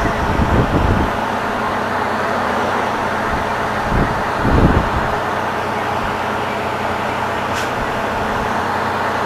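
Truck engine and road noise heard inside the cab at highway cruising speed, with the trailer running empty: a steady drone with low thumps in the first second and again about four and a half seconds in.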